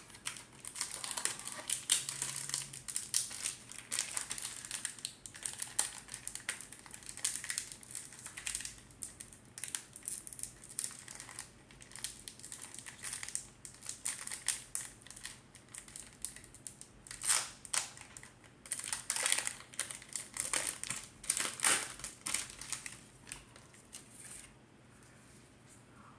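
Pokémon card pack wrapper crinkling and rustling as it is handled and opened, a steady run of irregular rustles and sharp clicks that dies away near the end.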